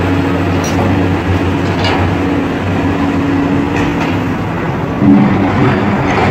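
Caterpillar hydraulic excavator's diesel engine running steadily as the boom and bucket move, with a few faint clicks and a brief louder surge about five seconds in.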